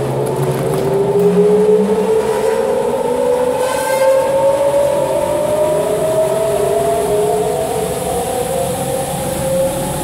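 Automatic carpet-wringing machine's drum spinning up under its electric motor: a steady whine that rises slowly in pitch as it gathers speed.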